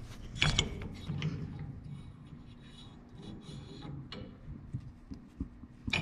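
A steel king pin sliding and scraping in a freshly reamed spindle bushing of a 1949 Ford F1 as it is pushed in and turned by hand, with a few sharp metal clicks, the loudest about half a second in and near the end. It is a snug fit, dropping in but getting a little tight.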